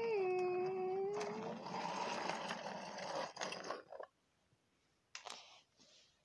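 A voice making a hummed car-engine 'vroom' for a toy car, one held note that dips in pitch and then slides up and stops about a second and a half in. A rushing noise with a few taps follows, and it goes nearly quiet after about four seconds.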